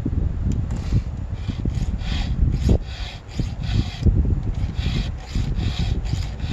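Round chainsaw file rasping across the cutters of a rip chain in short hand strokes, about two or three a second, sharpening the teeth. A low rumble runs underneath.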